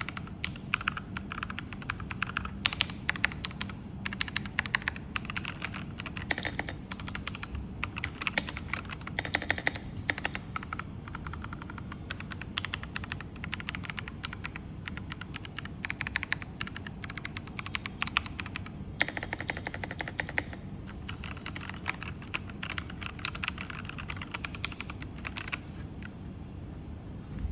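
Keychron K6 Pro mechanical keyboard with tactile brown switches being typed on steadily, a fast, irregular run of key clacks that stops a couple of seconds before the end.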